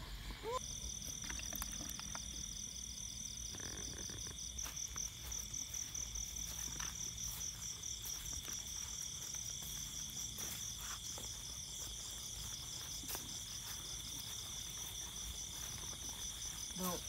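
Night insect chorus: crickets trilling steadily, one fast-pulsing high trill over a second, lower continuous trill, beginning about half a second in.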